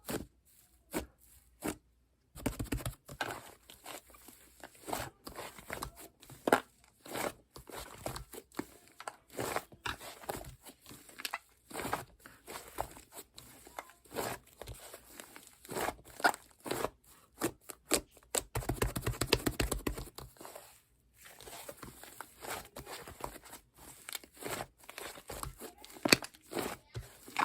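Slime being squished, poked and stretched by hand: a steady run of sticky pops, clicks and crackly tearing sounds, thickening into a dense crackle for a couple of seconds about two-thirds of the way through.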